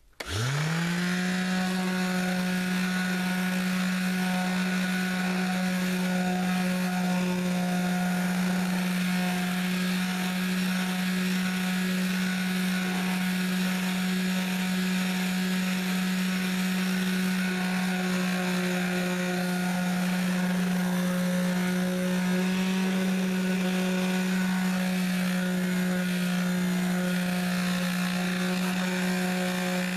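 A large electric vibrating sander with 220-grit paper is switched on, comes up to speed almost at once, then runs steadily with a constant hum. Over the hum is the rasp of the paper working the gloss finish off a guitar body.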